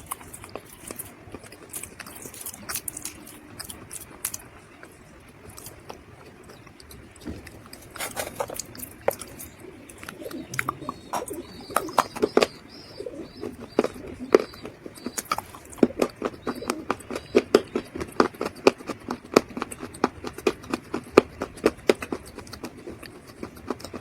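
Someone chewing dried mud close to the microphone: sparse crunches at first, then from about halfway in a rapid run of crisp crunches, several a second. A bird chirps faintly in the background for a few seconds in the middle.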